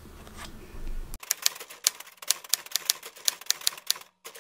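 Typewriter sound effect: a quick, irregular run of sharp key clicks, about five or six a second, starting about a second in, with a short break near the end.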